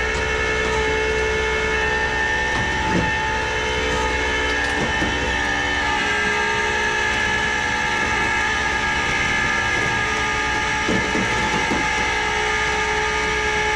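Flatbed tow truck's hydraulic pump running under power-take-off, a loud, steady whine with many tones over the engine held at raised idle, while the bed and winch work to load a car. A few light knocks sound along the way.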